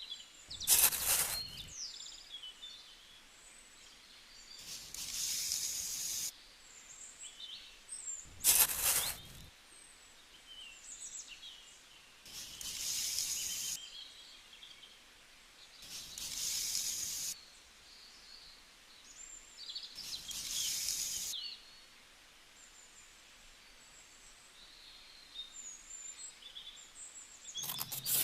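Small birds chirping in the background, broken about every four seconds by a short burst of hissing, rasping noise, six bursts in all.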